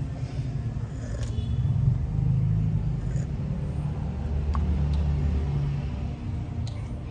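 Low, steady rumble of a motor vehicle engine, swelling about two seconds in and again a little later before easing off.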